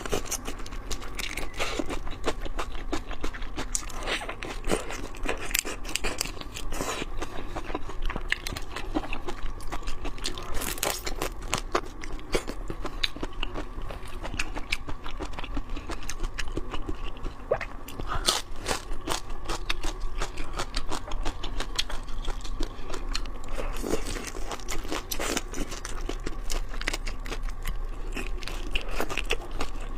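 Crunching and chewing of raw shrimp, with many small, irregular mouth clicks and smacks throughout.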